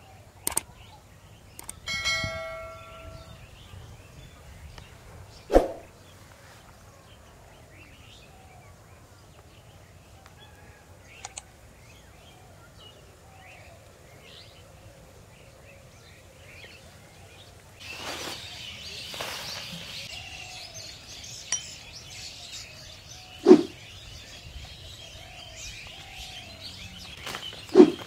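Kadaknath chickens calling: a few short, loud squawks spaced through the stretch, one drawn-out call with a clear ringing pitch about two seconds in, and soft clucks in the second half. From about eighteen seconds in, a stretch of rustling noise runs under the calls.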